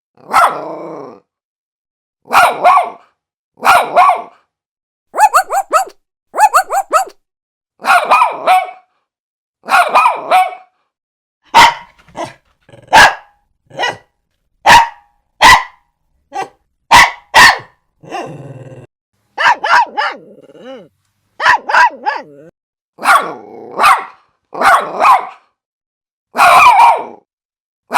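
Small dog barking in separate single barks and quick pairs, about one every second or so, with silence between each. Near the middle comes a run of short, sharp yaps.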